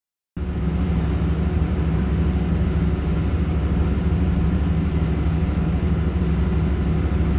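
Boat's engine and turning propeller heard from inside the underwater viewing room below the waterline: a steady low drone that starts a moment in.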